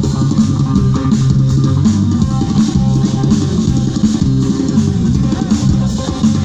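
Live band playing: drum kit, guitar and a strong bass line, loud and steady.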